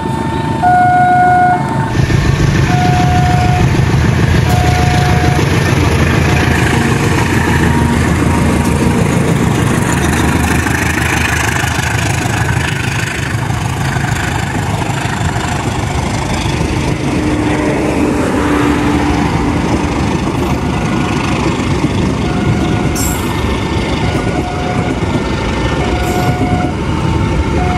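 Railway level-crossing warning bell dinging in a steady two-tone pattern about once a second. From about two seconds in, a passenger train's coaches roll past close by, a loud, steady rumble of wheels on the rails, with the crossing bell heard again near the end.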